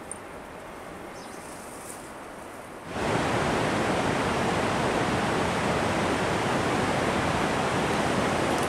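Faint, quiet outdoor ambience for about three seconds, then a sudden change to the loud, steady rush of a glacial mountain river and waterfall.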